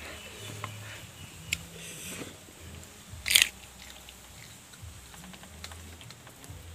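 Chewing and crunching on raw green chillies, with small sharp mouth clicks. A loud, short hissing burst comes about three and a half seconds in, and low closed-mouth hums come off and on as the heat sets in.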